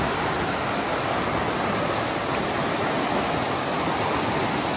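Spring water welling up from underground and churning in a turbulent boil: a steady, even rushing.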